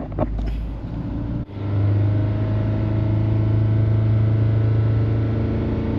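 Four-cylinder car engine brought up off idle about a second and a half in and held steady at around 3,000 RPM, a steady even hum, for a fuel-trim check on an engine logging a P2191 lean code.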